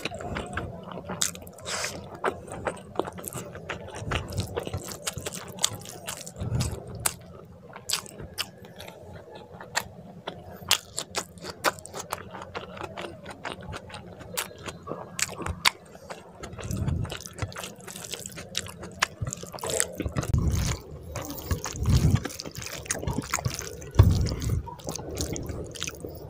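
Close-miked wet chewing of egg curry and rice: a dense, irregular run of sharp wet mouth clicks, with a few low thuds in the second half.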